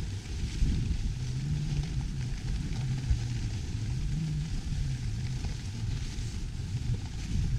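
Dog sled running over packed snow: a steady hiss from the runners under heavy wind rumble on the camera microphone. A low hum wavers in pitch for a few seconds in the middle.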